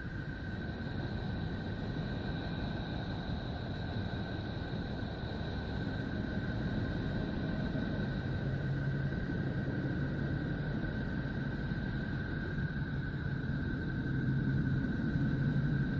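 Space sonification presented as the sound of Neptune: electromagnetic data turned into a steady rumbling noise with two faint high whistling tones, and a low hum joining about halfway through.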